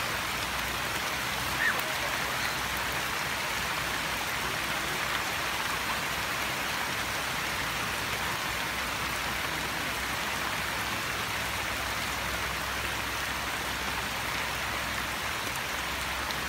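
Steady rain falling onto a flooded rice paddy, pattering on the shallow water and the stubble.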